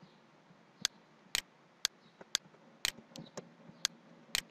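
Computer mouse and keyboard clicks while a value is copied and pasted: about ten sharp, short clicks at irregular spacing, a few in quick pairs.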